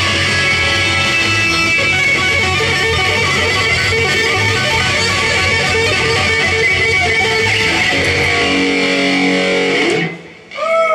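Live instrumental session of guitar, saxophone and koto, with strummed guitar prominent, playing with a steady pulse. Near the end the band holds a final chord, cuts off suddenly, and a voice begins.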